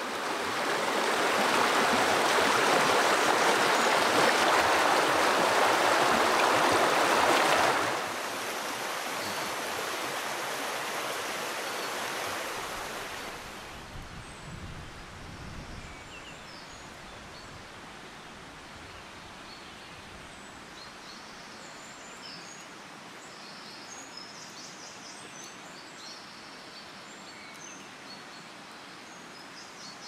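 Rain falling steadily, heavy at first, then lighter about eight seconds in and lighter again around fourteen seconds, settling into a soft even patter with faint high chirps over it.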